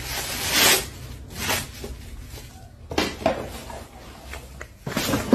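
Broken porcelain clinking, knocking and scraping as the pieces are handled and the packages hidden inside are pulled out, in a few separate bursts.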